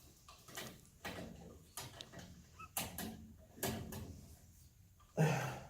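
Light clicks and knocks of metal parts being handled and a fastener being tightened inside a furnace cabinet, a few irregular taps each second, with a louder, longer scraping or rustling sound about five seconds in.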